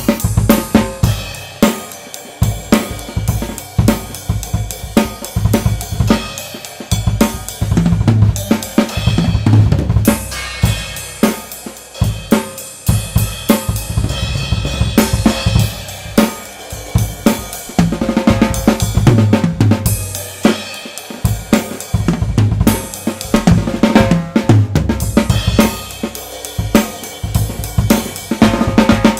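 Tama Swingstar drum kit with Meinl cymbals played continuously, picked up by a single Blue Yeti microphone: dense kick, snare, hi-hat and cymbal strikes, with heavier low drum hits in several passages.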